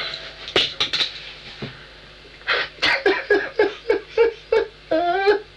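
A man sobbing in short, high-pitched whimpers, about four a second, starting about halfway through and ending in a longer wail. A few short knocks come in the first second.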